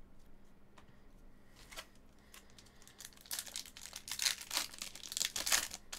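A foil trading-card pack wrapper being torn open and crinkled in the hands. After a few light clicks, dense crackling starts about three seconds in.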